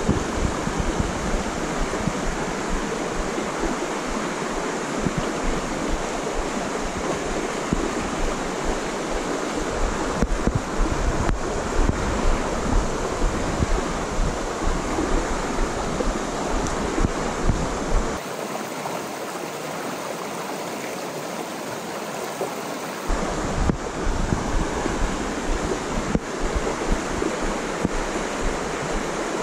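Shallow rocky creek running over stones: a steady rush of water with frequent short peaks in loudness. For a few seconds past the middle the low rumble drops out and it goes a little quieter.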